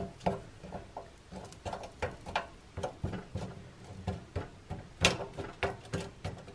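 A metal fork pushing frozen French fries around a nonstick air fryer basket: irregular light taps and scrapes of fork and fries on the basket, several a second, with one sharper clack about five seconds in.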